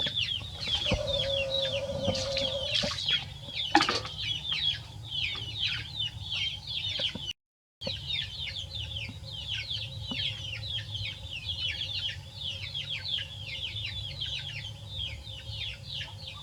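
Birds chirping: many short, falling, high-pitched peeps, several a second and overlapping, over a steady low hum. A brief dropout about seven seconds in interrupts it.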